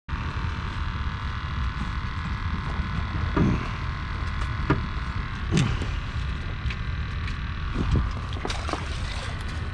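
A steady mechanical hum over a low rumble, with three short falling tones and a few faint clicks.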